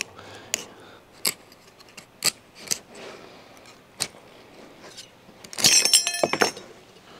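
Fillet knife scraping and clicking against a gar's hard, armour-like bony scales: a handful of separate sharp clicks, then about a second of loud, crunching, grating strokes near the end as the blade saws through.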